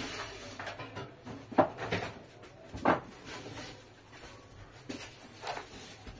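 Things being handled in a cardboard box: scattered knocks and rustles, with two louder knocks about a second and a half and three seconds in.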